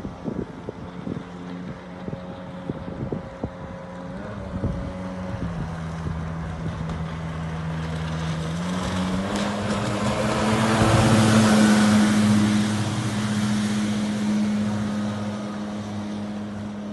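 Avon 400DL inflatable jet boat's engine running steadily at speed. Its pitch steps up a little about halfway through, and it grows loudest as the boat passes close by, with the rush of the jet and spray, then eases off as it moves away. Wind knocks on the microphone in the first few seconds.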